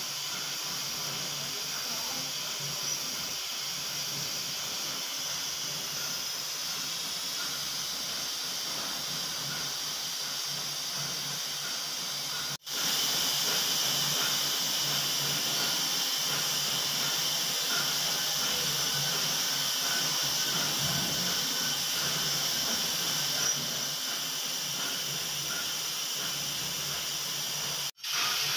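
A CNC vertical machining centre running a drilling program on a steel plate, with a steady hissing noise from the running spindle and coolant. The sound drops out for an instant twice, about twelve seconds in and near the end, and is louder after the first dropout.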